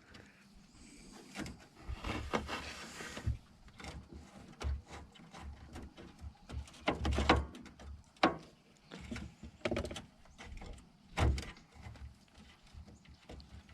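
Scattered metal clicks, knocks and scraping as a replacement hood latch is lined up and its mounting bolts are threaded in by hand, with a longer scrape in the first few seconds and sharper clicks later on.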